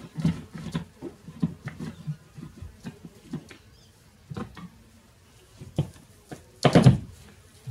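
A wall panel being eased off by hand, its back stuck to honeycomb: scattered small taps, creaks and scrapes, with one louder scrape about seven seconds in.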